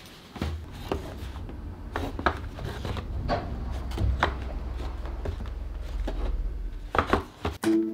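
Hands handling and opening a cardboard product box: scattered rustles, scrapes and taps of cardboard over a low steady hum.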